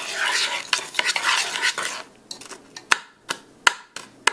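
Metal spoon stirring graham cracker crumbs, sugar and melted butter in a pan: a gritty scraping for about two seconds, then sharp clinks of the spoon against the pan, about three a second.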